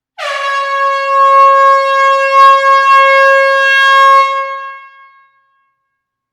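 Air horn giving one long, steady blast of about four seconds, then stopping with a short echoing tail in a hall.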